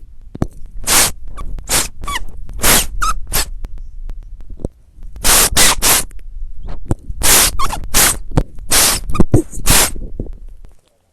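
A string of loud, harsh, static-like noise blasts, each about half a second long and irregularly spaced, with a short break about four and a half seconds in, cutting off suddenly near the end.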